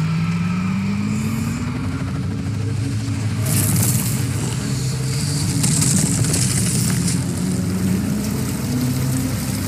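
Cartoon sci-fi sound effect of the alien accelerator being pushed faster: a low hum climbing steadily in pitch over about two seconds, then a steady rumbling roar with hissing surges about 3.5 and 6 seconds in.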